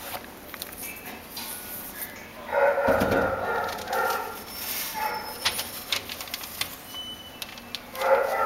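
Dogs barking in an animal shelter, loudest in a burst about three seconds in and again near the end, over rustling and bumping from a kitten rubbing against the camera.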